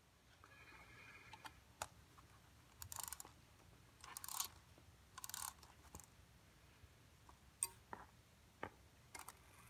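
Faint handling sounds of an antique brass clock movement worked with gloved hands: scattered light clicks and a few short scratchy scrapes against the bench, with near silence between them.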